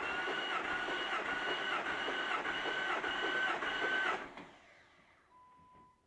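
Starter motor cranking the engine during a compression test on one cylinder: a steady high whine with rhythmic dips about twice a second. It stops about four seconds in, without the engine starting.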